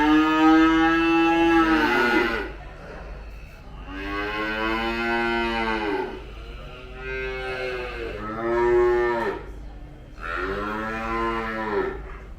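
Dairy cattle mooing: five drawn-out moos one after another, the first the longest and loudest. Each call rises slightly in pitch and then falls away.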